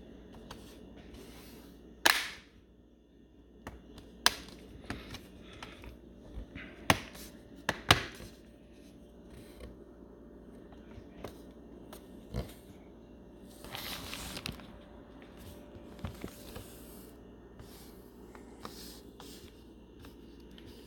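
Plastic laptop bottom cover being pressed and clipped onto the chassis: a series of sharp clicks and taps as the tabs snap in and the laptop is handled, the loudest about two seconds in and several close together around seven to eight seconds, with a brief rustling scrape around fourteen seconds.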